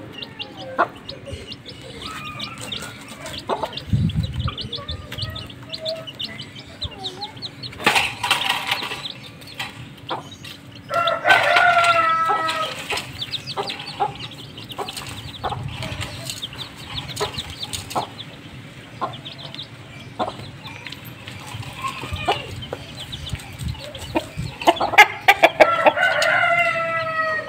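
A hen and her chicks foraging: the chicks peep in short high chirps throughout, and there are two longer, louder chicken calls, one a little before halfway and one near the end.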